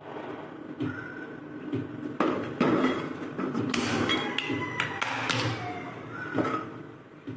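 Cookware being handled: a run of taps and knocks of utensils against a pan or vessel, busiest in the middle, with a few metallic clinks that ring briefly.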